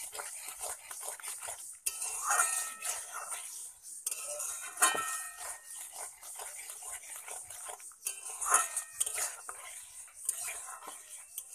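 Metal spatula scraping and clinking against a metal kadai, stirring milk and beaten egg without pause as the milk reduces down. Quick scrapes with ringing metallic clinks, a few louder strikes about two and a half, five and eight and a half seconds in.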